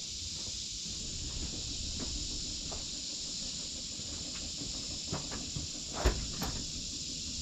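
Steady high-pitched chorus of insects, with a few soft clicks and a sharper knock about six seconds in.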